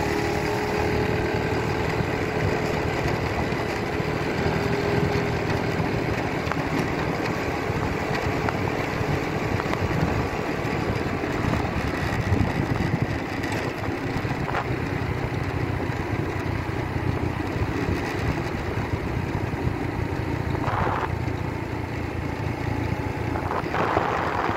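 Motorbike riding at a steady speed on a paved road, heard from on the bike: steady engine noise mixed with an even rush of wind and tyres.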